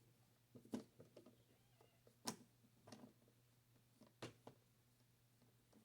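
A handful of faint, irregular clicks and taps from a Phillips screwdriver working a screw out of the underside of a Tandy WP-2 word processor's case.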